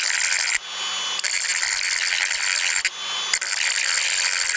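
Dremel rotary tool grinding the hardened-steel outer cup of a new ball joint: a loud, harsh, high grinding hiss that lets up briefly twice, about half a second in and near the three-second mark, leaving only the tool's steady whine.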